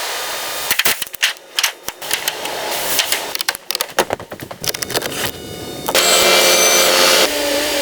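Mechanical workshop noise: a run of irregular clicks and knocks, then about six seconds in a louder steady machine noise with a held whine.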